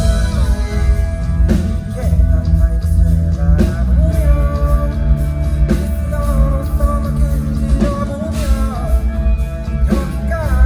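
Live band music with guitar, bass and drums, and a sung vocal line over it.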